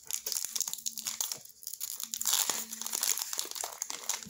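Foil wrapper of a Pokémon booster pack crinkling and tearing as it is worked open by hand, an irregular run of small crackles.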